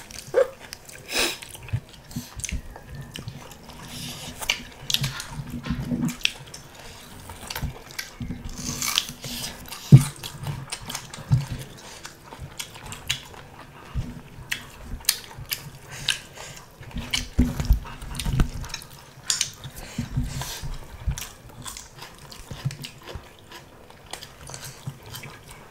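Close-up eating sounds from people eating pork and rice by hand: biting, chewing and wet mouth clicks, irregular and scattered, with one louder sharp knock about ten seconds in.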